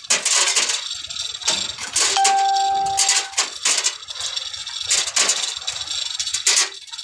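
Metal parts rattling and clanking in quick, irregular clicks, with a brief ringing tone about two seconds in that lasts around a second.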